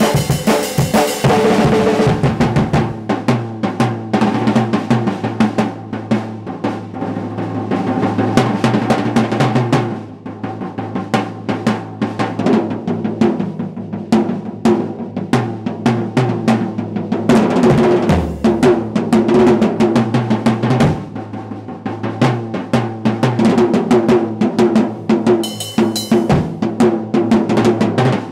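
Acoustic drum kit played in a solo with drumsticks: rapid, dense strokes on the snare and toms over the bass drum. The playing eases briefly about a third of the way in and again about three-quarters of the way through.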